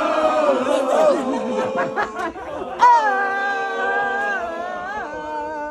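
Guests chattering and laughing together, then one voice holding a long, steady note for about two and a half seconds.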